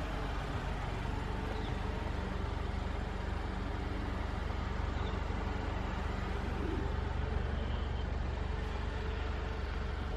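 Car engine idling steadily: a low rumble with a faint hum.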